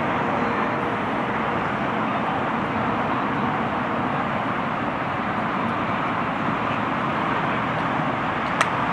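Steady outdoor road traffic noise, an even wash with no single vehicle standing out. A single sharp click sounds near the end.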